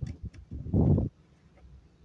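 Hand tools and engine parts handled during reassembly of a two-stroke grass-cutter engine. A light click comes at the start, then a low, rough scraping thud lasting about half a second midway.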